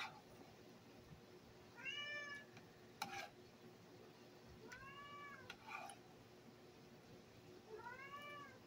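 A cat meowing three times, about three seconds apart, each meow rising and then falling in pitch. Between the meows come a few sharp clicks of forks on plates.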